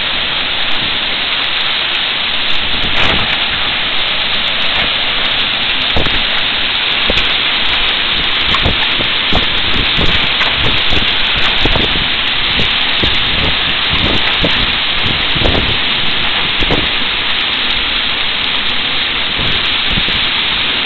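Torrential rain in a storm with hurricane-force wind: a loud, steady rush of driving rain with frequent short thumps.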